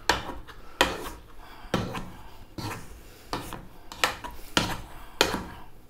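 Hand potato masher working boiled potatoes in a non-stick pot: about eight short knocks, a little under a second apart, as the masher is pushed down through the potato against the pot.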